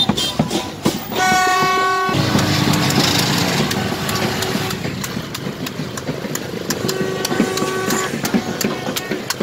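Pot lids and pans being banged in a rapid, irregular clatter, with a long horn blast about a second in, lower horn tones after it, and another horn blast near the end: the din of a street victory parade.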